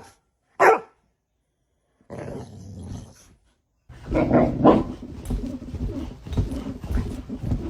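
A dog gives one short bark, then after a pause growls and grumbles in a long run of rough, uneven sounds.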